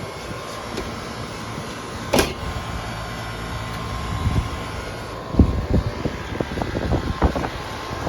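Outdoor air-conditioning condensing units running: a steady fan-and-compressor hum, one unit buzzing rather than running. A sharp click about two seconds in, and a run of knocks and clatter in the second half.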